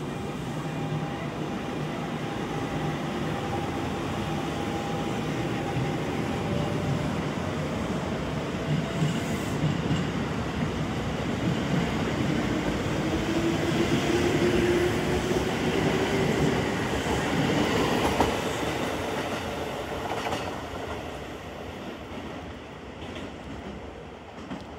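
A Kintetsu 1252-series and 8810-series six-car electric train pulling out of a station. Rising whine as it accelerates, and the wheels clatter over the rail joints. It is loudest about two-thirds of the way through, then fades as the train moves away.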